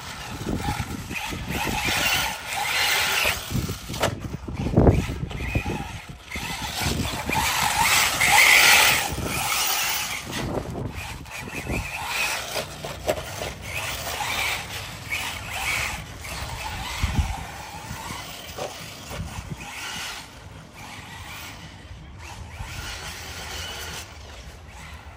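Electric radio-controlled cars running on an off-road dirt track: tyres scrabbling and sliding on the dirt, with scattered knocks and scrapes. The sound swells and fades as the cars come near and move away, and is quieter near the end.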